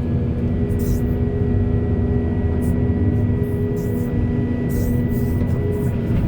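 Backhoe's diesel engine running steadily under load, a constant drone with a faint high whine, broken by short bursts of hiss.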